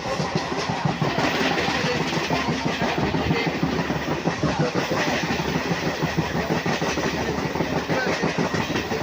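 Suburban electric local train running on its rails, a steady rumble with the rapid clatter of wheels over the track.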